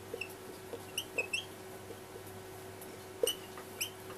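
Dry-erase marker squeaking in short strokes on a whiteboard as numbers are written: a few high squeaks and light taps around a second in, and two more after three seconds. A faint steady hum runs underneath.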